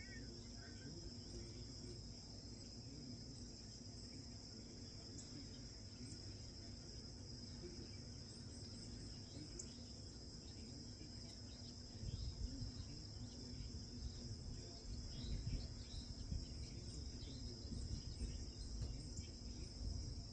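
A steady high-pitched insect chorus of crickets droning on, with low rumbling noise that grows louder from about halfway through.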